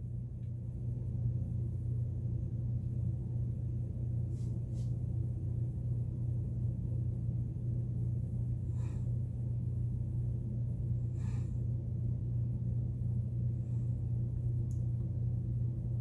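Room tone: a steady low hum, with a few faint, brief soft noises.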